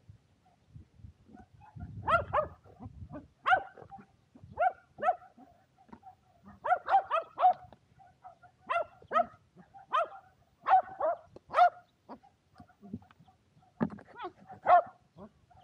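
Shetland sheepdog barking repeatedly in short, sharp barks, singly and in quick runs of two or three, from about two seconds in.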